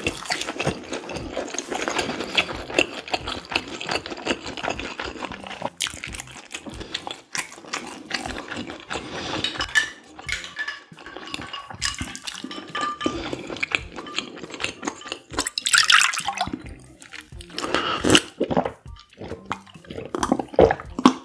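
Close-miked eating sounds: slurping spicy noodle soup and chewing, irregular and wet with many small clicks, louder about sixteen seconds in. Near the end, swallowing from a cup.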